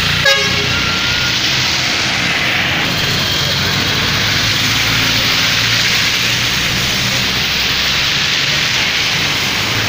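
Traffic driving through a flooded road: tyres splashing and hissing through standing water, with engines running under a steady wash of noise. A brief click sounds just after the start.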